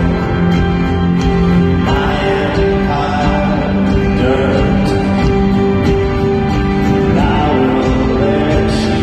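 Folk-rock band playing live in an arena, heard from the audience: guitars, piano and drums with long held chords that change about two seconds in and again about seven seconds in.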